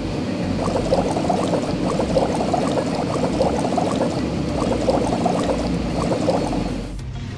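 Cartoon bubbling-foam sound effect: a dense run of small wet pops and gurgles as the van is lathered, stopping shortly before the end.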